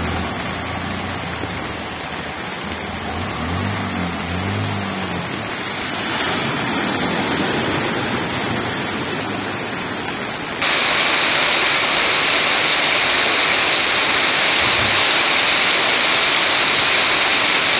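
Rushing floodwater and rain, a steady noisy wash. About eleven seconds in it cuts abruptly to louder, hissier heavy rain pouring onto flooded ground.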